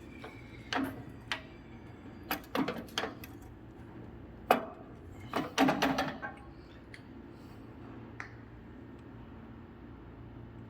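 Metal clinks and knocks, about a dozen sharp strikes in the first six seconds with the loudest around four and a half seconds in, from metal parts and fittings being handled at the bench. A steady low hum runs underneath.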